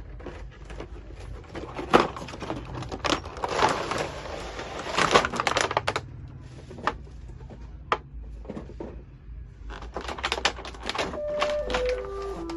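Toy-gun packaging being opened and handled: plastic and cardboard rustling and crinkling, with scattered clicks and knocks and a longer stretch of rustling about three to five seconds in. Near the end a simple melody of single held notes begins.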